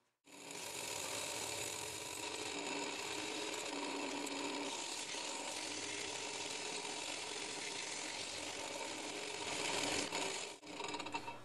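Home-built cork lathe running steadily while sandpaper is held against the spinning cork rod handle, a steady rubbing hiss over the motor's hum. It starts abruptly just after the beginning and stops about a second before the end.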